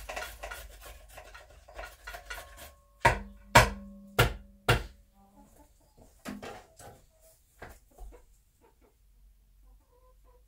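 Rustling and scratching in the grass lining of a hen's wooden nest box, then four sharp knocks about half a second apart a few seconds in, followed by a few small scattered clicks.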